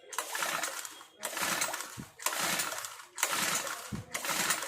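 Recoil starter of an Aspee four-stroke brush cutter pulled five times, about once a second, the engine cranking over without firing. The ignition coil gives no spark, which the owner puts down to a shorted coil.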